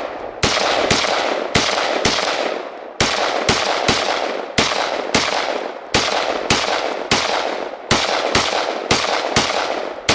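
Rock River Arms PDS piston-driven 5.56 rifle fired semi-automatically in a rapid string, about two shots a second at a slightly uneven pace, each shot trailed by a short echo.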